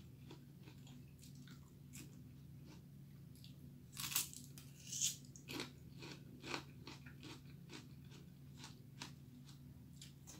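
Crisp crunching of raw bell pepper being bitten and chewed: a string of short crunches, the loudest a few seconds in.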